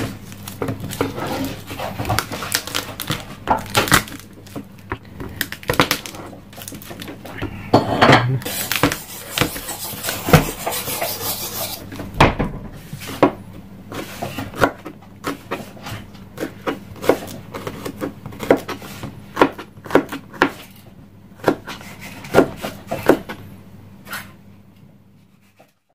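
Kitchen knife slicing garlic on a cutting board: a long series of sharp knocks as the blade meets the board, irregular at first and steadier later, about one to two a second. There is a stretch of scraping in the middle.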